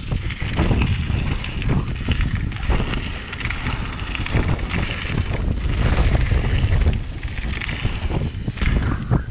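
Wind rushing over the microphone, with the crunch of a mountain bike's knobby tyres rolling fast down a loose gravel trail. Many short clicks and knocks from stones and the bike run through it.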